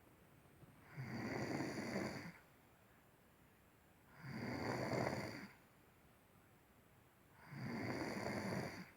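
Snoring in a steady rhythm: three snores about three seconds apart, each lasting about a second and a half, with quiet gaps between them.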